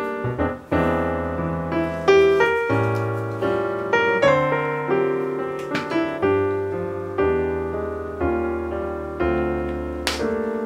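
Background piano music: single notes and chords struck one after another in an unhurried melody, each note fading away.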